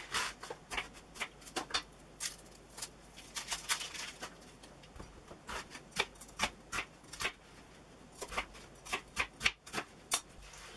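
Kitchen knife chopping a large onion roughly on a plastic chopping board: irregular knocks of the blade through the onion onto the board, in uneven runs with short pauses.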